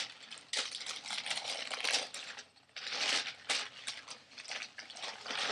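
Tissue paper packing in a shoe box rustling and crinkling as it is handled and pulled apart, in uneven spells with a short lull about two and a half seconds in.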